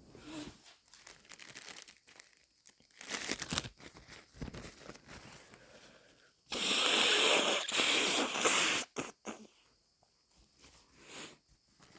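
Paper tissue crinkling and short breathy noises, then about halfway through a loud nose blow into the tissue lasting a little over two seconds.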